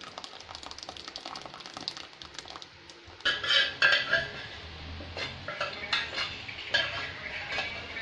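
A metal spoon scraping and knocking against a pan, scraping the last of a thick sugar syrup out over a bowl. After a quieter stretch, a run of scrapes and clinks starts about three seconds in.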